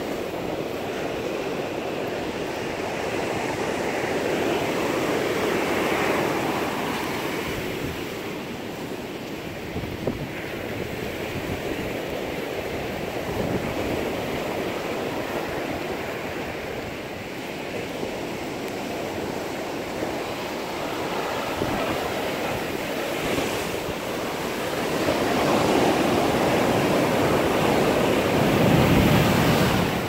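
Ocean surf breaking and washing up a sandy beach, a steady rushing that swells louder twice, about five seconds in and again near the end.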